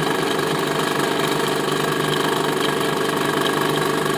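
Drilling machine running steadily, its spindle turning a reamer in a drilled hole in a metal block to finish the hole.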